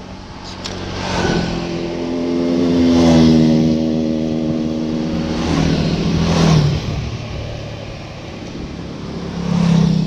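Small motorbikes passing close by on a paved road one after another, the engine sound swelling and fading with each pass and its pitch dropping as one goes by.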